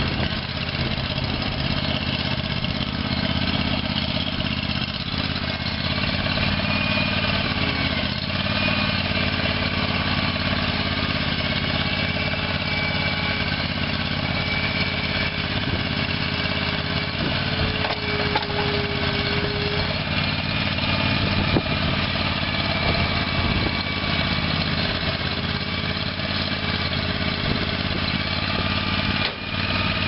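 Kawasaki 745cc OHV gas engine of a Ramrod Taskmaster 950 mini skid steer running steadily, with fainter tones that waver slightly in pitch over it and a brief dip near the end.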